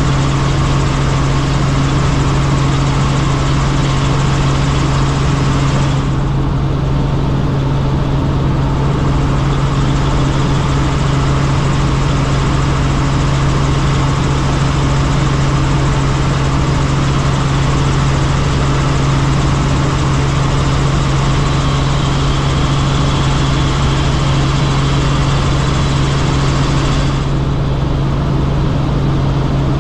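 Helicopter rotor and turbine noise: a loud, steady drone with a strong low hum. Its higher hiss turns duller from about six seconds in until near the end.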